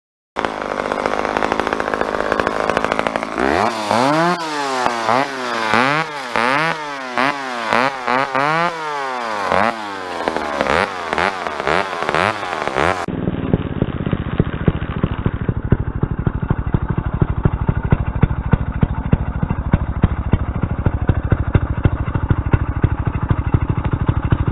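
Husqvarna 394 two-stroke chainsaw being revved over and over, its pitch climbing and falling about once a second. About halfway through, the sound cuts to a duller recording of the saw running steadily.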